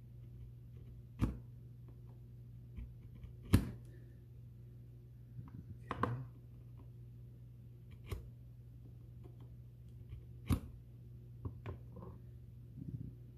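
Hand tool prying and scraping at a vape pen's plastic and metal case, giving sharp clicks and snaps roughly every two seconds, the loudest about three and a half seconds in, with a few softer ticks near the end. A steady low hum runs underneath.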